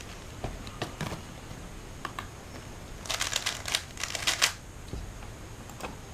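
Scattered light clicks, then a quick run of rapid clacking lasting about a second and a half near the middle.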